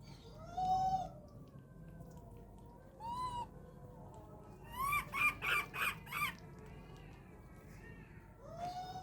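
Baby macaque calling: short, high-pitched arching calls, one near the start, another about three seconds in, a quick run of about five in a row near the middle, and one more near the end.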